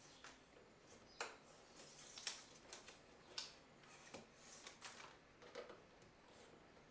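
Faint handling noises from vinyl window trim being worked into place: short scratchy rustles and a few light plastic clicks and taps, scattered irregularly.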